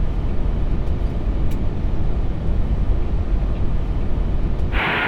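Airbus A380 flight-deck noise on short final: steady airflow and engine rumble with a heavy low end. Near the end the rumble drops away abruptly and a steady hiss takes over.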